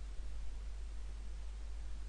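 Steady background hiss with a low hum underneath, the recording's own noise floor; no distinct sound event.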